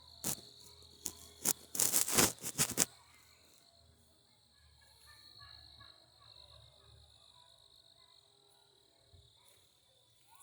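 Insects chirping steadily in a high, thin tone. A few loud knocks and rustles come in the first three seconds, then it goes quieter.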